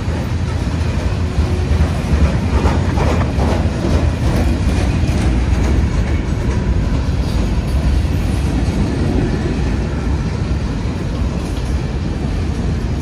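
Freight train rolling by with a steady, heavy low rumble of engines and wheels on the rails.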